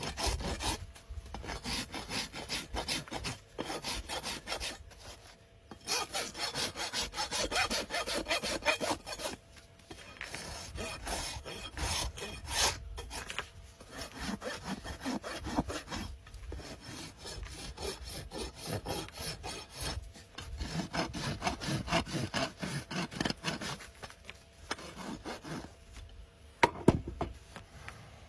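A farrier's rasp filing a horse's hoof in bouts of rapid back-and-forth scraping strokes, with short pauses between bouts. One sharp knock comes near the end.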